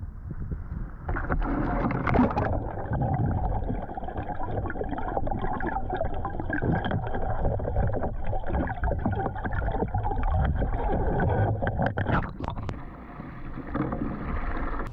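Muffled sloshing and gurgling water picked up by a bow-mounted action camera as the kayak capsizes and the camera goes underwater, with a few sharp splashes near the end as the kayak is rolled back upright.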